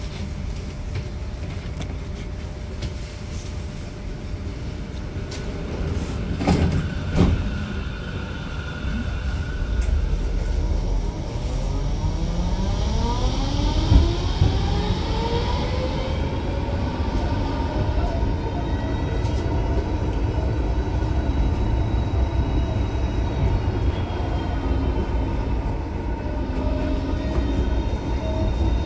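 Inside an R-Wagen low-floor tram: a short loud clatter about six seconds in, then the traction drive's whine rising in pitch as the tram accelerates, levelling off into a steady hum over the low rumble of wheels on rails.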